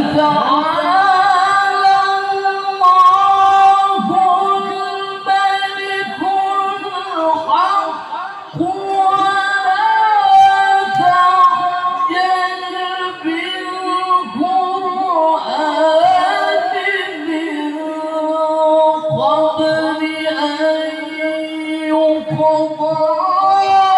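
A man's voice reciting the Quran in the melodic tilawah style through a microphone: long held, ornamented notes that slide between pitches, with short breaks between phrases.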